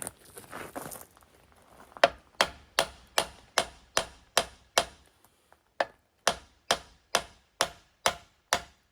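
Hammer striking metal in an even rhythm, about two and a half blows a second. About eight blows, a pause of about a second, then about eight more, each with a short ring. Some scraping and handling is heard before the hammering starts.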